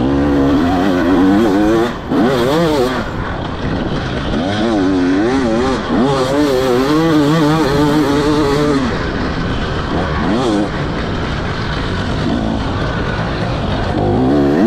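2024 KTM 300 XC-W's two-stroke single-cylinder engine with an Akrapovic slip-on silencer, revving up and down again and again as the throttle is worked on the ride. The throttle is chopped briefly about two seconds in.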